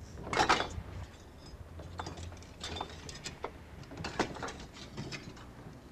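Hollow bricks knocking and clinking against one another as they are lifted and stacked by hand: a scatter of short, irregular knocks over a low steady hum.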